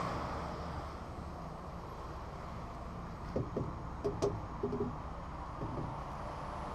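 Scania 113 truck's diesel engine idling steadily, with a few short knocks between about three and six seconds in from a small mallet struck against the tyres to check them.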